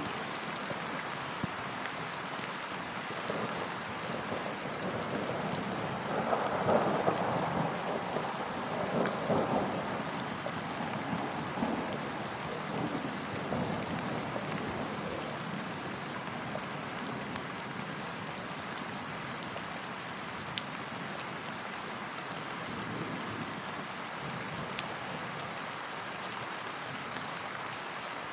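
Steady rain falling on a lake's surface, with a roll of thunder swelling up about six seconds in and dying away by about ten seconds, followed by fainter rumbles.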